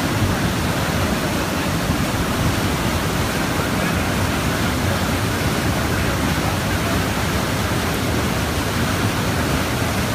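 Steady rushing of water through a small hydroelectric turbine as it drives an alternator under load.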